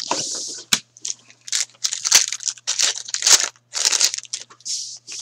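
Foil trading-card pack wrapper being torn open and crumpled by hand: a run of short, crisp crinkling rustles.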